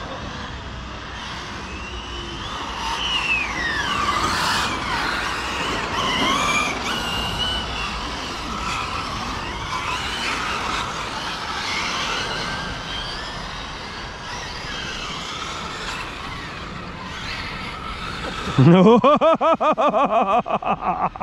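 Radio-controlled cars with brushless electric motors running on a gravel track: motor whine rising and falling with the throttle over tyre and gravel noise. Near the end a loud, rapidly pulsing buzz rises in pitch.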